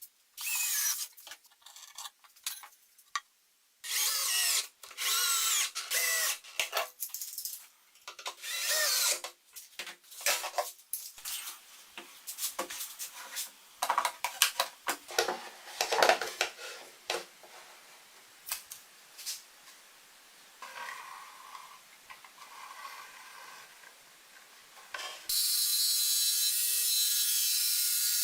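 A power drill run in short bursts of about a second each, its whine shifting in pitch. Clicks and knocks of tools and wood being handled follow. Near the end a motor starts and runs steadily.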